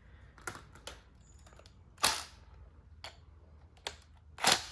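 Metal parts and hand tools clicking and clinking during work on an air-conditioner compressor's magnetic clutch: a few scattered knocks, the loudest about two seconds in, then a quick run of clicks near the end.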